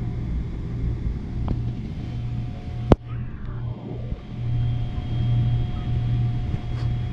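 Airliner cabin noise: a steady low rumble from the jet, with a single sharp click about three seconds in, after which a faint steady whine is also heard.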